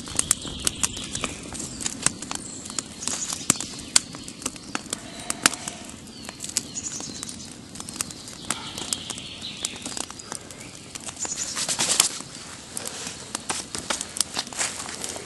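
Wood fire burning inside a stone-built fireplace, crackling with irregular sharp pops as damp wood catches. About eleven seconds in, a louder rustle of dry leaves underfoot.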